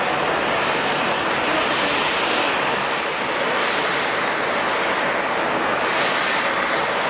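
Jet airliner engines giving a steady, loud rushing noise, with a hiss that sweeps up and down in pitch a few times.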